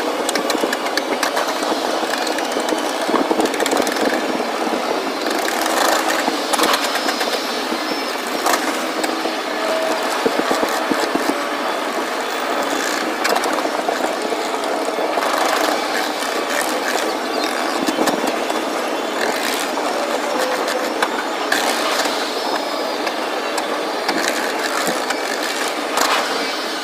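Fireworks going off: repeated sharp bangs and crackles every few seconds over a steady background din.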